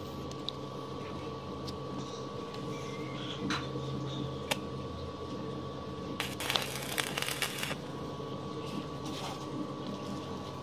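A brief crackle of a stick-welding arc, lasting about a second and a half a little past the middle, as a steel bar is tacked to the angle-iron frame. Around it are a steady faint hum and a few light clicks of steel bars being set in place.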